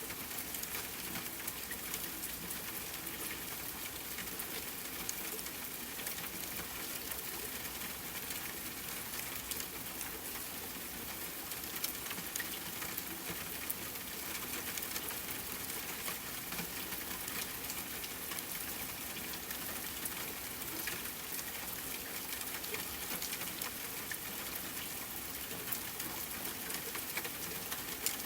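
Steady rainfall blended with a crackling wood fire: an even hiss with many scattered sharp ticks and pops.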